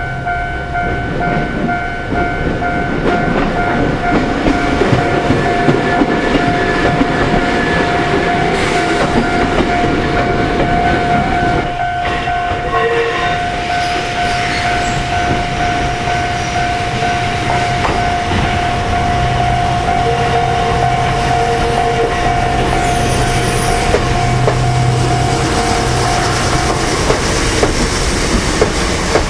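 Japanese level-crossing warning bell ringing steadily, stopping about 27 seconds in. Over it a train approaches and runs into the station, its wheels clattering on the rails.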